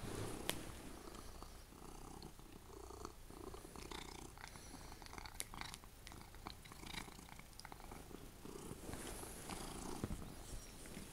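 Domestic cat purring close up, a steady low rumble, with scattered light clicks over it.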